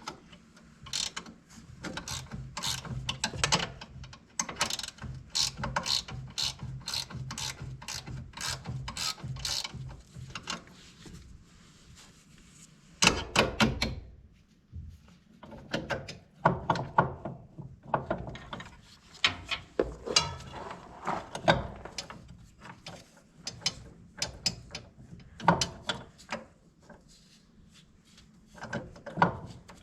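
Hand ratchet wrench clicking as it turns a nut or bolt on the planter's wheel hub. For about the first ten seconds it runs in quick, even strokes, about three a second, then comes in short bursts with pauses between them.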